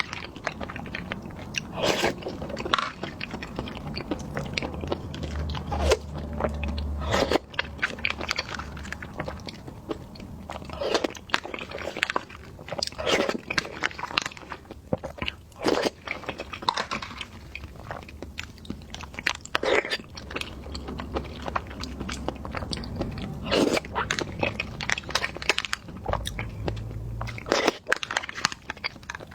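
Close-miked eating sounds: a jelly snack being bitten and chewed, with sharp, crisp bites every second or two between wetter chewing.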